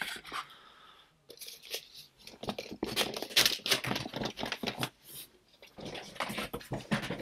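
Irregular rustling and clicking handling noises close to the microphone, coming in clusters with short pauses.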